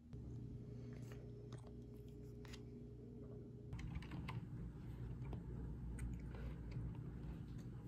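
Low steady room hum with scattered light clicks and taps. From about halfway, a stylus tapping and sliding on an iPad's glass screen as she writes.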